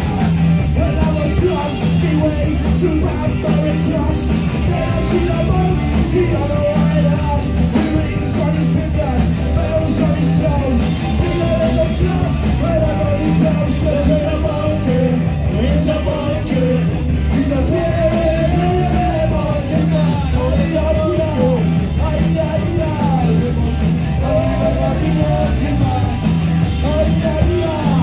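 Live band playing a ska cover with electric guitars, bass and drums through a PA, a steady beat under a moving melody line.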